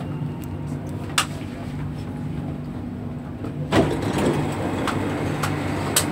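Dubai Metro train running with a steady low hum as it pulls in, with a couple of sharp clicks. About two-thirds of the way through, a loud sudden rush of noise comes as the doors open, followed by passengers' voices.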